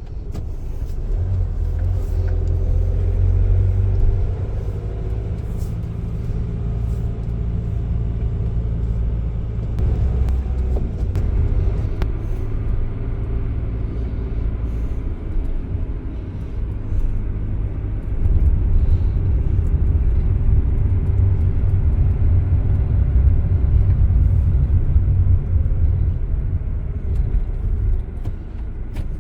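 Citroën Jumper van's diesel engine and drivetrain running with a heavy low rumble while the van is driven. The engine note rises and falls a few times.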